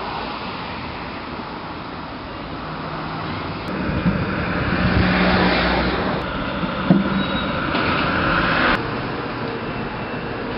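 City street traffic noise, swelling as a vehicle passes about halfway through. The ambience changes abruptly at several points where shots are cut together.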